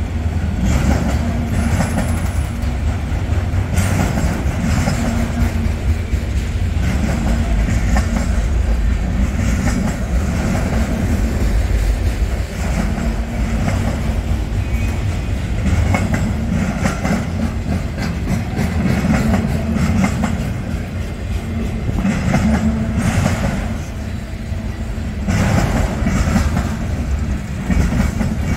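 Freight cars of a mixed-manifest train rolling past close by: a steady low rumble with the repeated clickety-clack of wheel sets over the rail joints.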